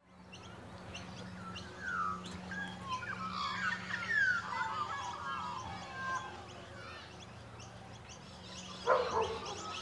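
Suburban outdoor ambience of birds calling, with a run of warbling, gliding calls in the middle and a louder call near the end, over a steady low hum.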